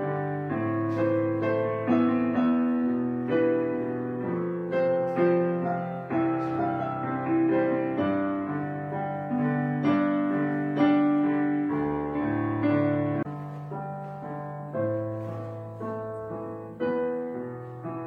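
Gentle background piano music, slow notes and chords struck and left to fade.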